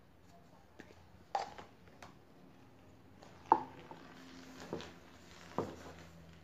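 Paintbrush stirring a wet mortar-and-PVA-glue slurry in a plastic tub, with four sharp knocks against the plastic. The loudest knock comes about three and a half seconds in.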